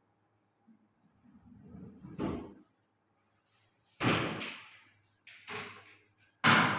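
Wooden almari doors being swung shut, four separate knocks with the last one the loudest.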